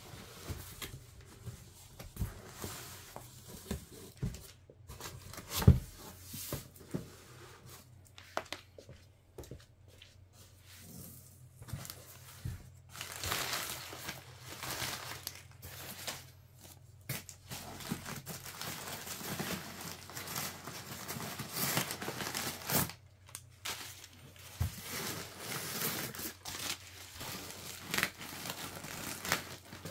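Packaging being opened by hand: irregular tearing and crinkling of wrapping material, with one sharp knock about six seconds in.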